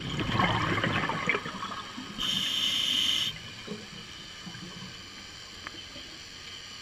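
A scuba diver's breathing through the regulator underwater. For about two seconds exhaled bubbles rush and gurgle, then comes a steady hiss of about a second as the diver inhales. After that only a faint underwater background remains, with one small click.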